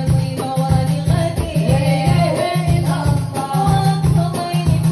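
A woman singing an Arabic nasheed into a microphone, backed by an electronic keyboard and a steady, heavy drum beat, all amplified.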